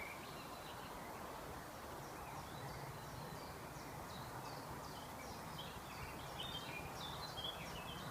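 Birds singing in the distance up in the trees: many short, faint chirps and trills over a steady background hiss.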